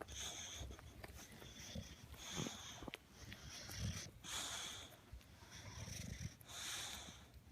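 English bulldog snorting and wheezing as it chews on a toy, a string of noisy breaths about one a second with low grunts mixed in.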